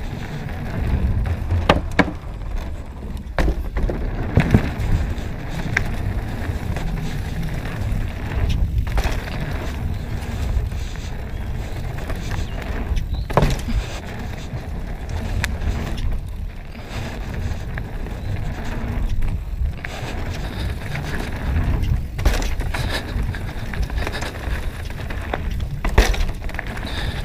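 Mountain bike ridden fast down a dirt forest trail, heard from the rider's own camera: a steady rolling rumble from the tyres and bike, with frequent sharp knocks and rattles as it goes over bumps.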